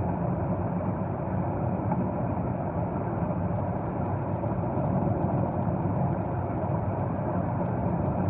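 Steady road and engine noise of a car driving at speed on a highway, heard from inside the cabin.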